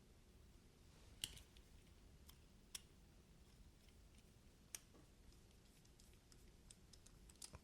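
Near silence with a handful of faint, sharp clicks spaced a second or two apart, from small metal folding-knife parts such as back spacers being handled and fitted.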